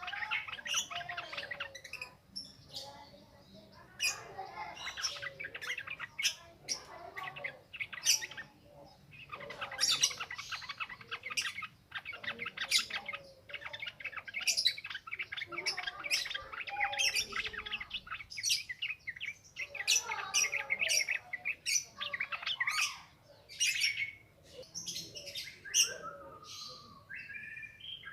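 Sooty-headed bulbuls singing in the wild in fast, continuous chattering phrases, one burst after another with short pauses between.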